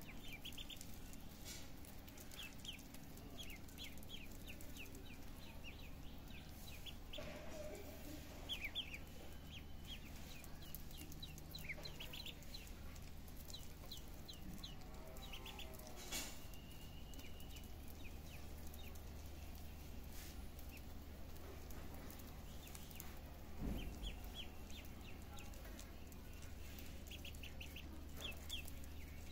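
A brood of ducklings peeping: short, high peeps in quick runs, scattered throughout, over a steady low hum.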